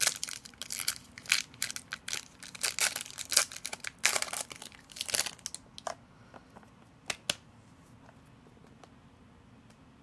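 Foil wrapper of an Upper Deck hockey card pack crinkling and tearing as it is ripped open by hand, for about six seconds. Then it goes quiet apart from two short clicks as the cards are handled.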